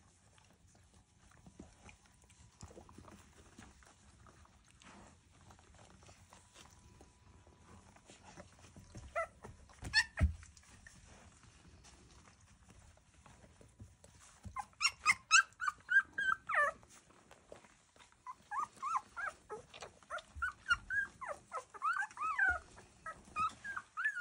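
Young Airedale Terrier puppies squeaking and whimpering in short, high, wavering cries: a few around ten seconds in, then more and more through the second half. Before that, only faint rustling of the litter moving about.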